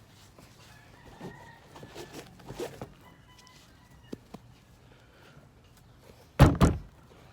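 A loud double knock about six and a half seconds in, like a hard object struck or set down twice in quick succession. Before it come faint scattered taps and scrapes, and a few faint high held calls.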